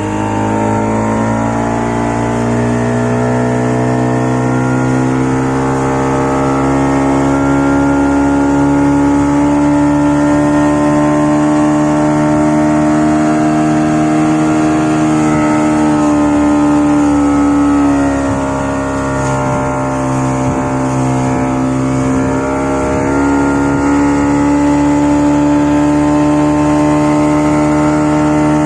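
Yamaha 40 hp outboard motor running at high throttle: it revs up over the first couple of seconds, holds a steady high note, sags in pitch about two-thirds through and climbs back up.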